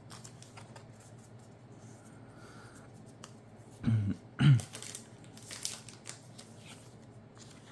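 Pokémon trading cards being handled and stacked on a playmat: soft rustling and faint clicks of card against card. Two brief louder low sounds come close together about four seconds in.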